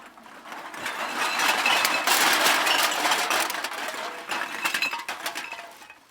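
A bag of cans being dumped out, the cans clattering and knocking against each other in a dense jumble. It builds over the first couple of seconds, is at its loudest around two to three seconds in, and thins to scattered knocks toward the end.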